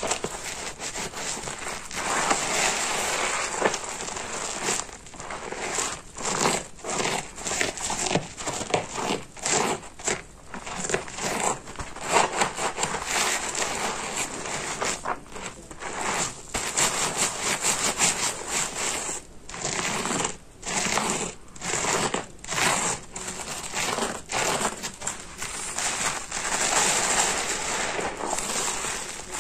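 Hands scratching and squeezing a stiff, porous car sponge soaked in thick soap suds: wet crackling and crunching in irregular strokes with brief pauses.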